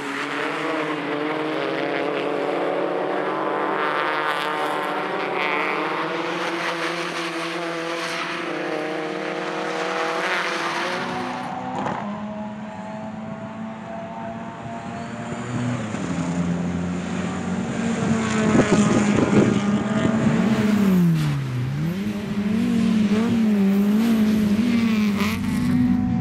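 Several small touring race cars' engines at high revs as they accelerate out of a corner together, their pitches climbing. After about twelve seconds a single race car's engine is heard from trackside, its revs dropping sharply once and then rising and falling quickly with gear changes.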